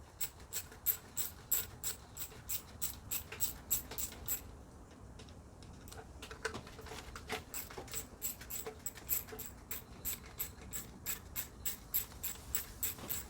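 Ratchet wrench with a 7mm socket clicking steadily, about three to four clicks a second, as bolts on the engine computer are worked loose; the clicking pauses briefly about four seconds in, then resumes.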